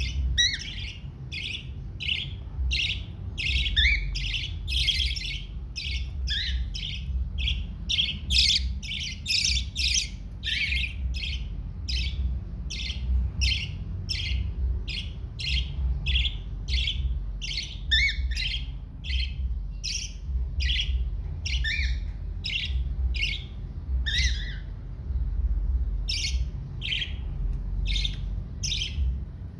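Cockatiel chick giving short, high begging squawks over and over, about two a second, while being fed, with a low pulsing rumble underneath.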